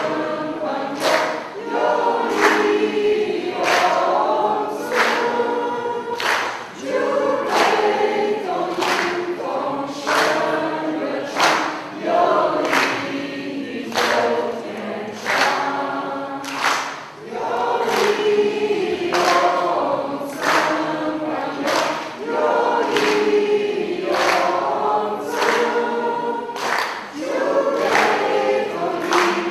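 Mixed choir of young men and women singing a song together.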